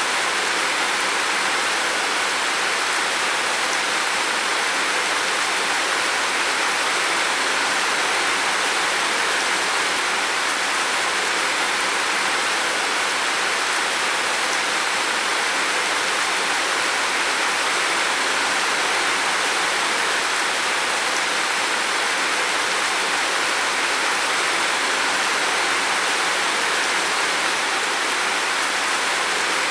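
Heavy rain falling steadily on a roof, a dense, even hiss of drops with no change in strength.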